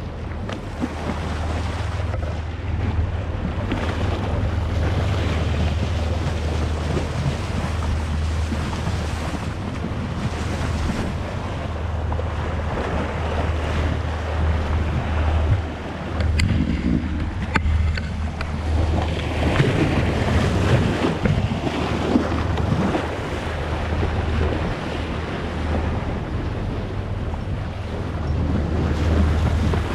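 Wind buffeting the microphone over the rush of sea water, with a steady low drone underneath and a couple of faint ticks about halfway through.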